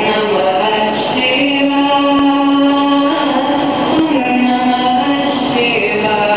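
Street musician's performance: a slow melody of long held notes, each lasting a second or two, with a singing-like tone.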